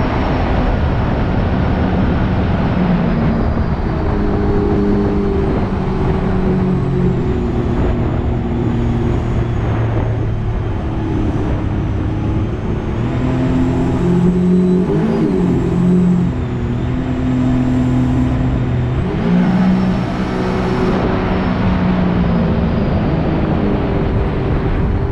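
Rotax 4-TEC 250 engine of a jet boat running under way during its break-in, its pitch stepping up and down several times as the engine speed changes, over a steady rush of water and wind.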